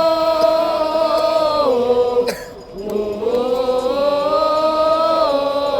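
Football supporters singing a chant in long held notes. The pitch steps down a little under 2 seconds in, and after a short break the voices slide back up and hold again.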